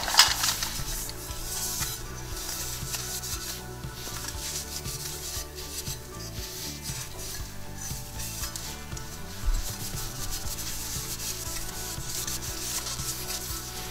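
A cloth shop rag rubbing and wiping a dirty snowmobile cover plate, in irregular scrubbing strokes. There is a sharp knock right at the start and a dull bump about nine and a half seconds in.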